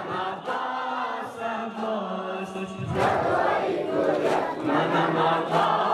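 A crowd of men chanting a nauha, the Shia lament of Ashura mourning. The chant grows louder and fuller about halfway through.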